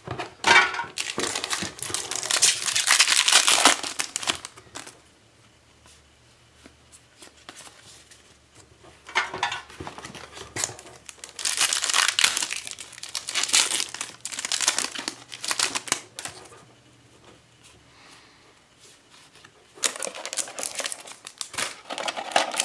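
Foil trading-card booster-pack wrappers crinkling and tearing as packs are handled and opened, in several bursts with quiet gaps between.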